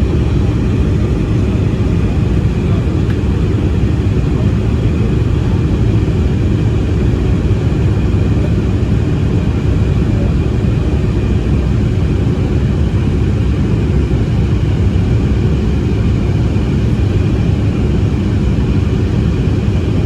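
Embraer E190-E2 jet airliner's geared turbofan engines running at steady power, a constant low noise with a faint steady whine above it.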